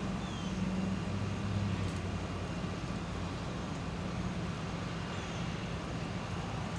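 Floodwater swirling down a drain in a whirlpool: a steady low rumble with a hum.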